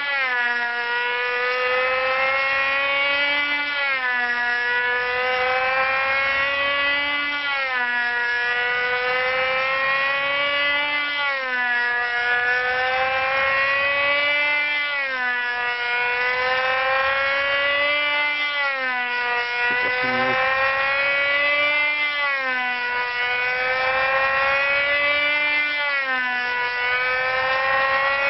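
Webra .20 (3.5 cc) two-stroke model engine of a control-line airplane running at full throttle in flight. Its high buzz rises slowly in pitch and then drops sharply once every lap, about every four seconds, as the plane circles past.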